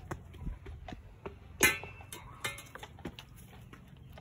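Footsteps walking over grass and mulch: irregular soft crunches and knocks, with one louder thump a little under two seconds in.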